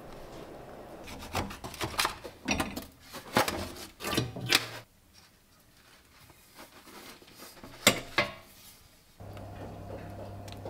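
Kitchen handling noises: a quick series of knocks and scrapes as a metal baking tin is handled, then a single sharp knock a few seconds later. A low steady hum starts near the end.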